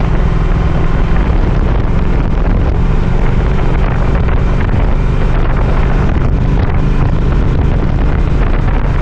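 Triumph Speed Twin 1200's parallel-twin engine running at a steady cruise while the motorcycle is ridden, with wind noise rushing over the microphone.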